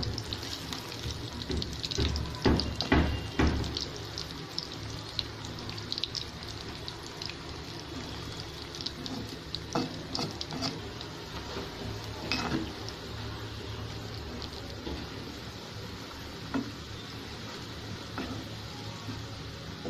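Pakoras deep-frying in hot oil in a kadai: a steady sizzle full of small crackling pops. A metal slotted spoon knocks and scrapes against the pan now and then, most often in the first few seconds.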